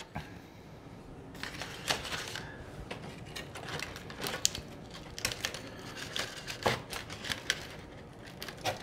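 Aluminium foil crinkling and crackling in irregular clicks as a beef rib is cut and pulled from the rack lying on it.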